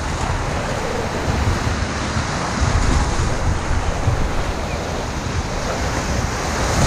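Breaking surf and whitewater washing through the shallows in rough sea, a steady rushing noise, with wind buffeting the microphone.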